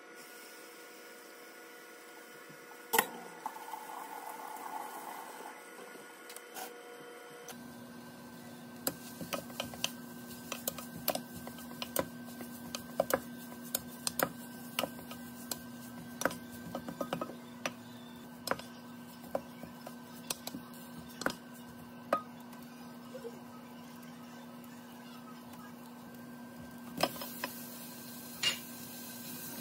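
A wooden spatula stirring shredded dried pollack in perilla oil in a nonstick saucepan, giving many irregular clicks and scrapes against the pot. A steady low hum sets in about a quarter of the way in.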